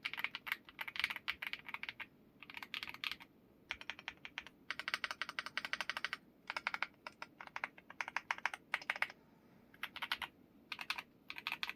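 Typing on a Wobkey Crush 80 Reboot Pro mechanical keyboard: quick runs of key clicks in bursts, broken by short pauses.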